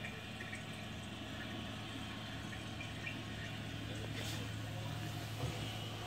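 Bosch dishwasher running its wash: a steady low hum from the circulation pump with water spraying inside, heard through the closed door.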